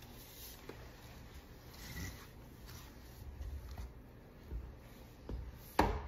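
Broom bristles sweeping a hardwood floor in faint, scratchy strokes, with one sharp knock near the end.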